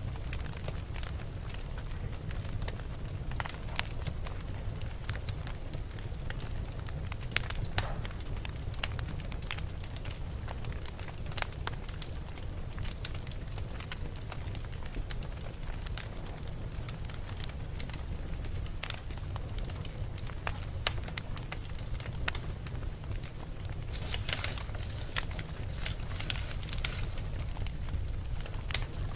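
Wood fire burning in a fireplace: a steady low rumble of the flames with irregular crackles and pops from the burning logs, a few louder snaps and a busier stretch of crackling near the end.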